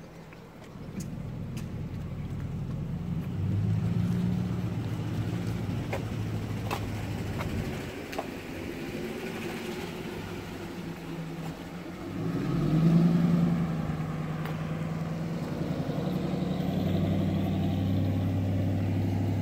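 An engine running, its pitch stepping up and down several times, with a louder surge about two-thirds of the way through.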